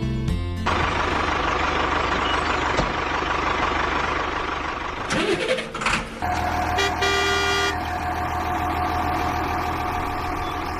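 Steady whirring of the small electric motors of a DIY model vehicle running, with a break about five seconds in and a short electronic beep about seven seconds in.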